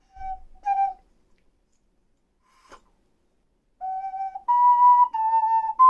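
Ocarina played: two short notes just after the start, a pause broken only by a faint click, then from about four seconds in a phrase of clear held notes moving up and down in pitch.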